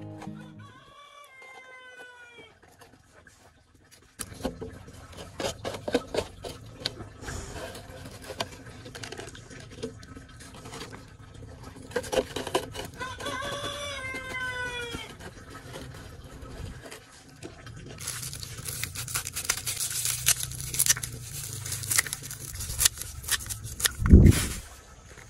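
A chicken calling twice, each time a quick run of short falling notes, once just after the start and again about halfway. In between, hands rustle and patter as they work compost and shake fertilizer granules onto the soil of a potted plant. For the last seven seconds scissors snip and crackle through dry leaves, with a single low thump near the end.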